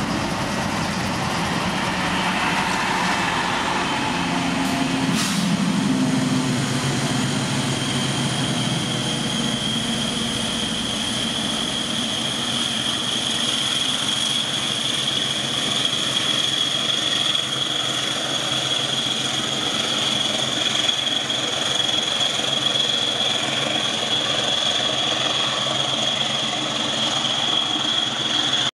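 Diesel locomotive engine running steadily close by, with a strong, steady high-pitched whine that comes in about eight seconds in and holds to the end; a single click about five seconds in.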